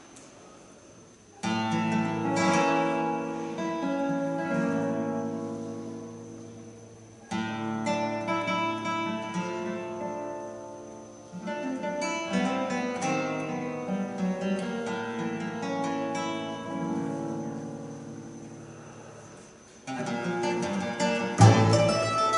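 Acoustic guitar playing slow, separate chords, each struck and left to ring and fade, four times. About a second before the end a louder, quicker passage begins as the mandolin comes in over a low bass note.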